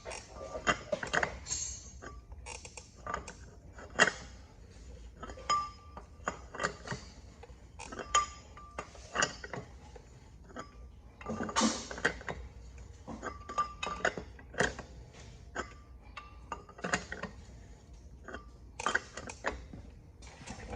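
Irregular metallic clinks and knocks from hand tools and steel parts being handled, a few of them ringing briefly; the loudest knocks come about four seconds in and around twelve seconds in.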